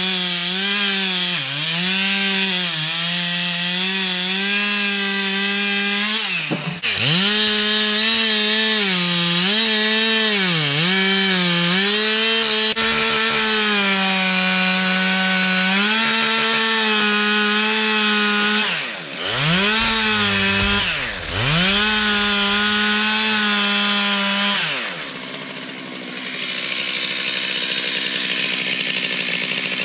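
Stihl MS 441 two-stroke chainsaw at full throttle cutting a fallen tree, its pitch sagging again and again as the chain bites into the wood. The throttle drops off sharply about six seconds in and twice more about two-thirds of the way through, and near the end the high pitch gives way to a lower, rougher running.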